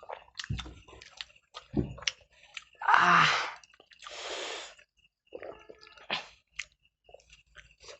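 Close-miked chewing and squelching of rice and egg curry being eaten by hand, with scattered wet clicks. A loud breathy burst about three seconds in and a softer hiss about a second later stand out, heavy breaths from the eater.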